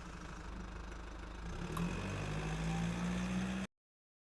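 Renault Kwid's three-cylinder engine running with a steady low hum that grows a little louder about a second and a half in, then cuts off suddenly.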